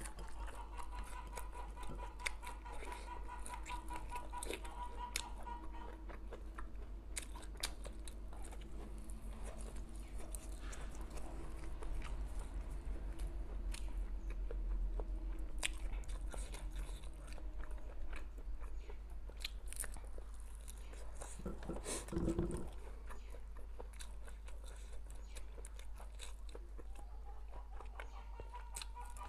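Close mouth sounds of a person biting and chewing grilled sausage: soft wet clicks and smacks scattered through the chewing.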